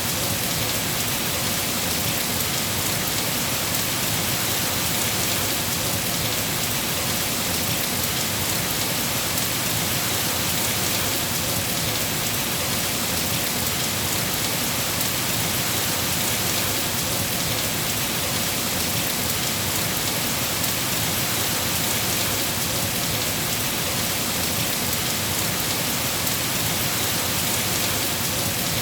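Steady rain falling, a constant even hiss with no thunderclaps or pauses.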